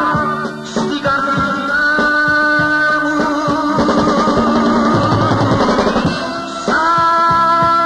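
Live band playing an instrumental passage of Greek popular music: held melody lines from the instruments over a drum kit, with a busy run of drum strokes through the middle.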